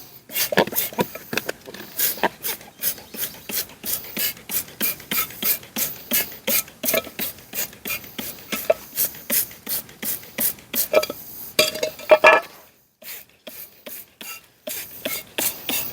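Hand ratchet wrench clicking steadily as a bolt is turned, a quick regular run of clicks that breaks off briefly near the end and then starts again.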